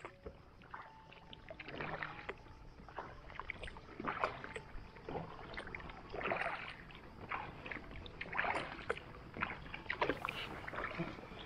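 Kayak paddle strokes in calm water, the paddle blades dipping and splashing irregularly about once a second beside an inflatable kayak (Decathlon Itiwit X100).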